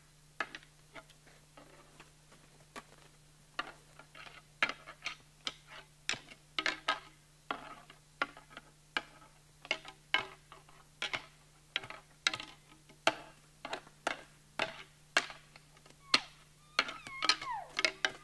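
Elk antlers being lightly clacked and rubbed together ('tinkering the horns'): an irregular run of sharp clicks and knocks, about two a second, some ringing briefly. Done as a soft antler rattle to stir a nearby elk's curiosity.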